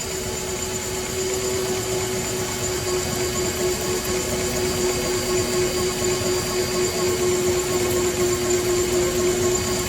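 Portable line boring and bore-welding machine (Mactech BB1750) running steadily: a constant mechanical hum with a thin high whine over it.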